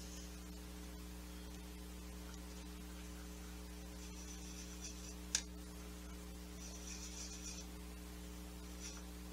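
Steady electrical mains hum, with faint soft brushing as a small paintbrush works watercolour paint in a palette, and one sharp click about five seconds in.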